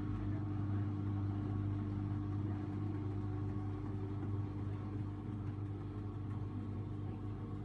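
Samsung Ecobubble washing machine with a digital inverter motor, its drum turning at a steady speed in a spin phase: a steady, even hum.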